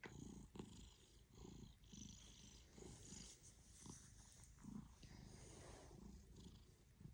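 Domestic cat purring faintly, a low rumble that swells and eases with each breath.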